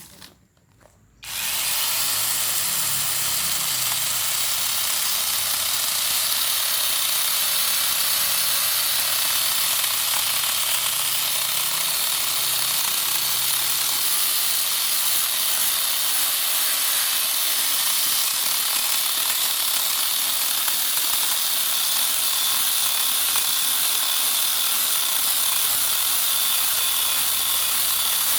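Electric angle grinder fitted with a chainsaw attachment, starting about a second in and then running steadily with a high whine and hiss as it cuts through hard teak root.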